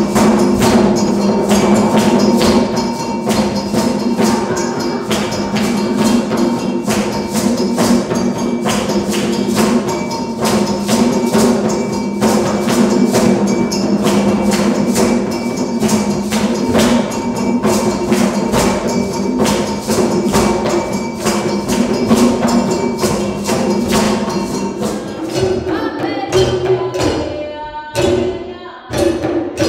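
An ensemble of djembe-style hand drums playing a fast, driving rhythm, dense with strikes over a steady ringing tone. Near the end the steady drumming breaks off into a few separate hits.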